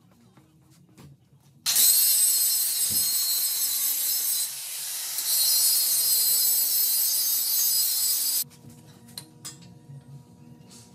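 Angle grinder grinding old layered paint off a metal bed headboard frame down to bare metal for welding. It starts a couple of seconds in and runs for about seven seconds with a brief dip near the middle, then stops, followed by a few light metal clinks.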